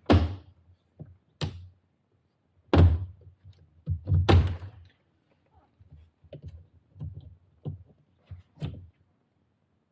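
Plastic interior trim panels around a car's shifter console being pried off and popping free of their clips: a series of sharp thunks and clacks, four loud ones in the first half and smaller knocks after.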